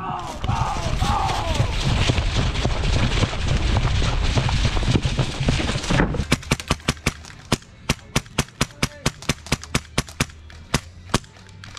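Loud rough rustling and knocking for about six seconds, with a brief shout near the start. Then an airsoft gun fires strings of sharp shots, about four a second, with short pauses between strings.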